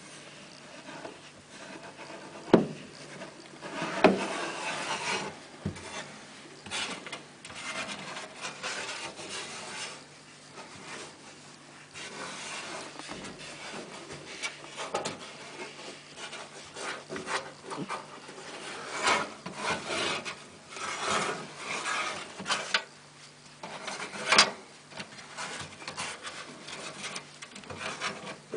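Irregular scraping and rubbing of parts inside a stripped-down tumble dryer being worked on by hand, broken by a few sharp knocks.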